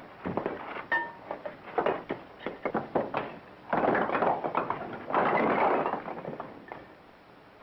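Bricks being knocked out of a wall and tumbling down: a run of knocks and clatters, with two longer spells of rattling, falling rubble about halfway through, dying down near the end.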